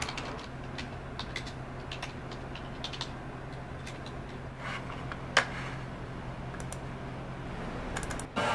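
Irregular keystrokes clicking on a low-profile computer keyboard, over a steady low hum. One sharper click comes about five seconds in, and a quick run of keystrokes near the end.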